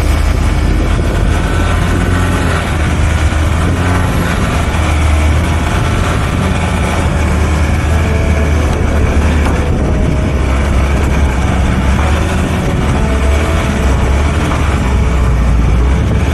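Four-wheel-drive vehicle driving along, its engine running with a steady low rumble.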